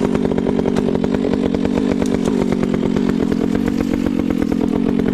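Two-stroke chainsaw running at high revs, cutting wood, with its pitch sagging a little and recovering as it works through the cut.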